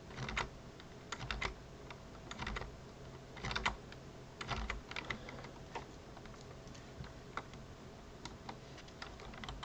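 Computer keyboard keys pressed in short irregular clusters of clicks, over a faint steady low hum.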